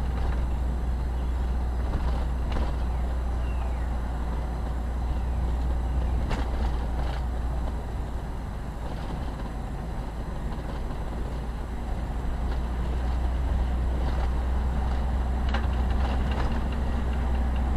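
Steady low drone of a car's engine and tyres heard from inside the cabin while driving slowly, with a few light knocks from the road.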